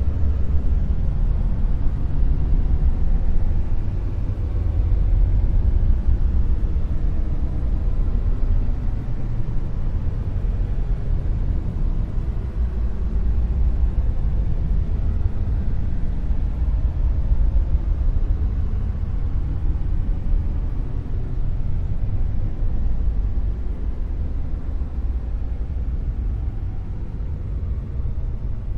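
Dark noise: a steady, deep rumble of shapeless noise, heaviest in the bass and thin in the treble, rising and falling slowly in loudness.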